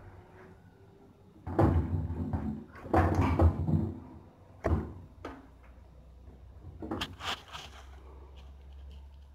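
A run of thumps, knocks and sharp clicks as a hand handles the oily crankshaft and bearing caps of an open Renault 1.4 16v engine. Two heavier clusters of knocks come about a second and a half and three seconds in, with single clicks later.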